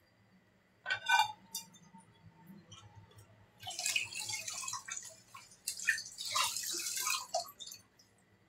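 A glass or dish clinks once about a second in, then water splashes at a kitchen sink in two spells of a second or so each.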